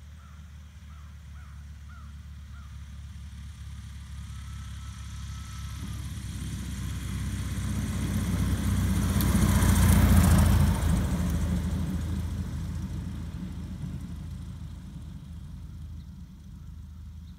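Cessna 150's four-cylinder Continental O-200 engine and propeller running at low power on the landing roll and taxi along a grass strip. The sound grows steadily louder to a peak with a hissing prop wash about ten seconds in as the plane passes close, then fades as it moves away.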